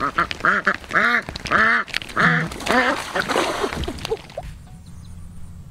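A duck quacking loudly in a rapid series of quacks, about two a second, stopping about four seconds in.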